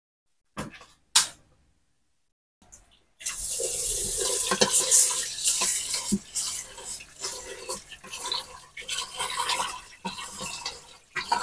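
Two short clicks, then from about three seconds in a kitchen tap running into a rice-cooker inner pot while hands swish and rub the rice in the water: rice being washed before cooking.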